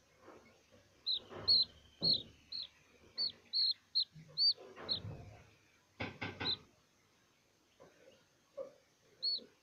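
Young chick peeping: about a dozen short high peeps in quick succession in the first half, then one more near the end. A brief run of soft clicks comes just past the middle.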